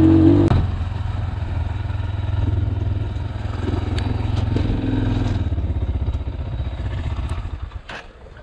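Motorcycle engine on a dirt track: the throttle is closed about half a second in, and the engine then runs at low revs as the bike rolls slowly. It fades near the end with a few sharp knocks.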